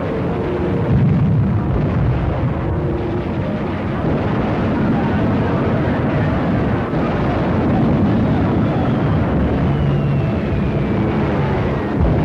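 Battle sound effects on an old film soundtrack: a continuous dense rumble of explosions and gunfire. A faint falling whistle runs through it from about eight seconds in.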